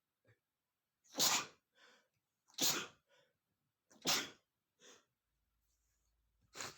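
A man sneezing four times in a row, set off by sniffing red pepper. The first three sneezes come about a second and a half apart, with a longer gap before the fourth near the end. A short, much quieter breath follows each sneeze.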